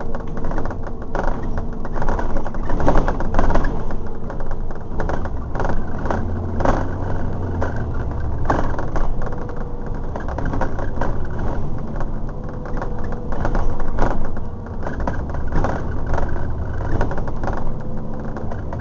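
London double-decker bus engine running as the bus drives along, heard from inside on the upper deck, with the body, seats and windows rattling and clattering all the while. A faint steady whine sits over the engine note.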